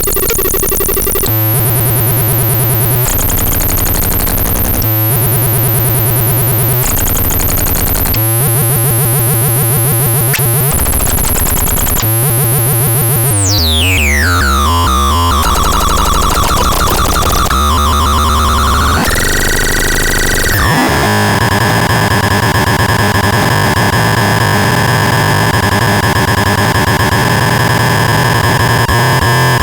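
Synthesizer making harsh, noisy electronic tones that switch abruptly every second or two. About halfway through, a steep falling pitch sweep leads into a dense, sustained drone with a steady low hum for the last third.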